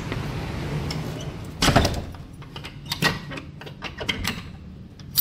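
A wooden door is pushed shut with one loud knock, about two seconds in, and the outside background noise drops. Then come a run of small metallic clicks and rattles from its lock as a key is worked, ending in a sharp click.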